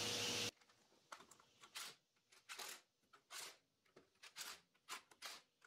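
A cordless Milwaukee Fuel power tool in quiet short bursts, about eight of them, running the nuts down onto the studs that hold a Dana 60 front axle's spindle to its steering knuckle, before they are torqued.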